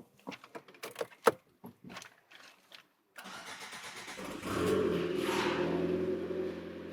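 A few clicks and knocks, then the Lada Largus's 1.6-litre eight-valve petrol engine cranks for about a second and catches, running on at a steady idle. This is the first start after an oil change with the oil system drained empty, so oil pressure takes a while to build.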